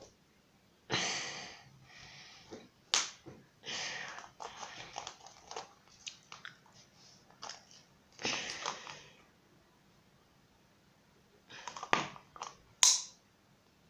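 Plastic packaging of a fidget spinner being handled and forced open by hand: bouts of crinkling and rustling with several sharp clicks and snaps, the package proving hard to open.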